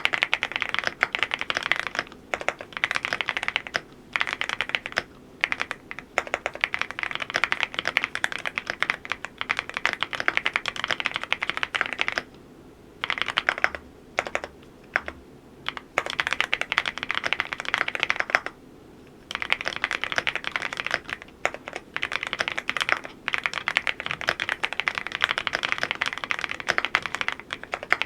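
Cidoo V87 Pro full-aluminium mechanical keyboard being typed on quickly. The keystrokes clatter in runs of several seconds, broken by a few short pauses about halfway through.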